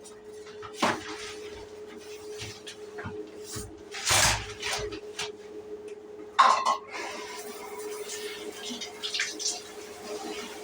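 Shower water splashing irregularly in a small bathroom, with a few sharp splashes or knocks (the loudest about four and six and a half seconds in) over a steady low hum.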